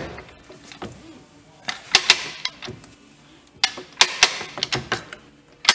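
A few sharp metal clicks and knocks as a Bridgeport spindle pulley hub is worked out of its pulley in an arbor press, with parts shifting against the steel support blocks. They come in a cluster about two seconds in, another about four seconds in, and once near the end.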